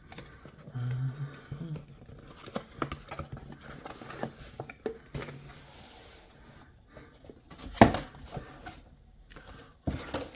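Cardboard gift box and its packaging being opened by hand: scattered rubbing, scraping and rustling, with one sharp knock nearly eight seconds in.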